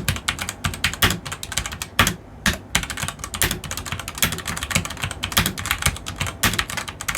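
Redragon K630 Dragonborn 61-key mechanical keyboard with brown switches being typed on quickly: a rapid, uneven stream of key clicks with a short pause about two seconds in.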